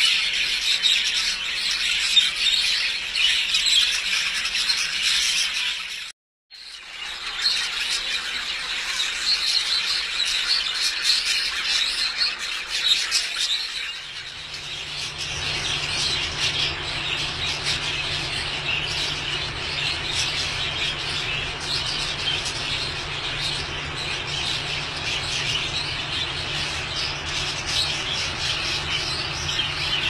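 Many budgerigars chattering, chirping and squawking together in a dense, continuous chorus. It drops out for a moment about six seconds in, and from about halfway a steady low hum runs underneath.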